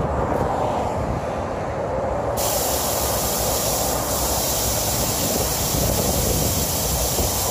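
Air hissing out of a Toyota Tundra pickup's rear tire through the valve stem as the tire is deliberately let down. The hiss turns suddenly louder and sharper about two seconds in and then holds steady.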